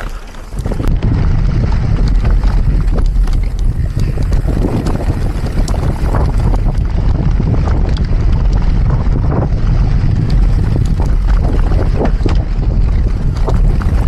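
Heavy wind buffeting on the camera microphone of a mountain bike ridden fast on a race trail, a loud, steady low rumble that starts suddenly about a second in. Scattered clicks and knocks from the bike rattling over rough ground run through it.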